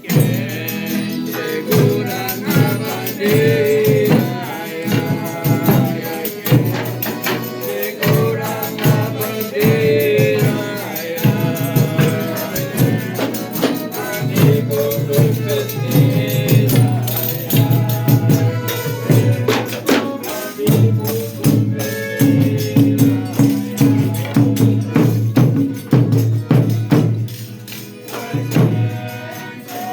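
Folia de Reis folk music: a group singing over a steadily beaten and shaken tambourine.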